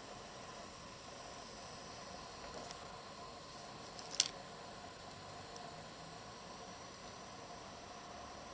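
EVGA GTX 1070 OC graphics card under full Furmark load giving off a steady hiss, which the owner suspects comes from the card's chokes. A single sharp click sounds about four seconds in.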